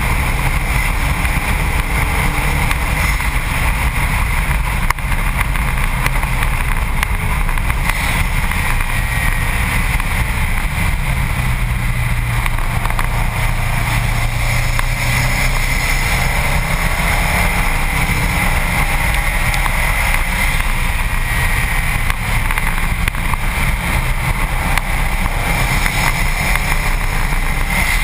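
Wind and road noise on a bumper-mounted camera on a Subaru WRX STi at track speed, with the car's turbocharged flat-four engine running underneath. The engine note shifts in pitch with throttle and gears.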